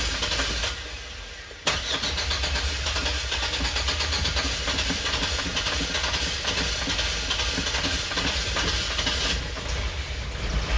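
Chevy Express van's 4.3-litre V6 being cranked by the starter, which cuts in sharply about two seconds in; the engine catches and keeps running. This is a crank-but-no-start fault cured by replacing a chipped distributor cap.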